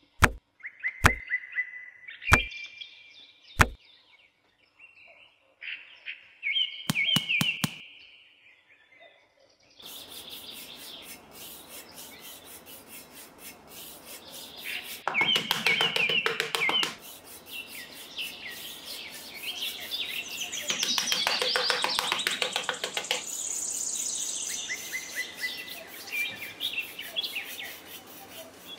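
Songbirds chirping and calling, with a few sharp clicks in the first seconds. From about ten seconds in, a gritty scraping of a small metal hoe dragged through sand runs under the birdsong.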